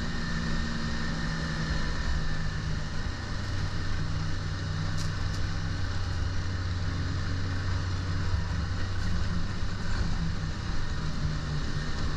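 Snowmobile engine running steadily at cruising speed under the rider, a low even drone with a rushing noise underneath.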